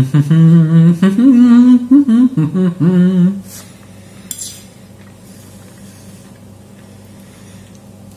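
A man humming a long, wavering 'mmm' with his mouth full as he chews, for about three seconds. About a second later a fork clinks once against a ceramic plate.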